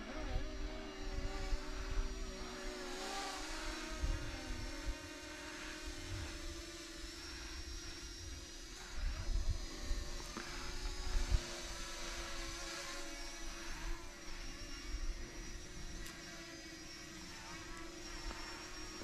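Steady electric propeller hum of small radio-controlled aircraft flying overhead, holding an even pitch, with uneven low rumble on the microphone.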